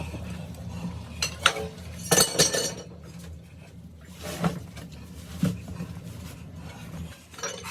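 Metal tools clinking and knocking in a few separate strikes, one about two seconds in ringing briefly, over a steady low hum.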